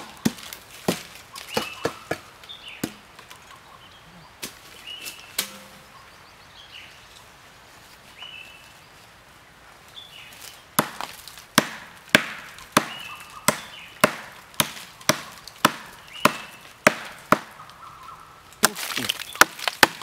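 Blows of a blade chopping into a tree trunk. They are scattered at first, then from about eleven seconds in come a steady run of about three blows every two seconds, louder near the end.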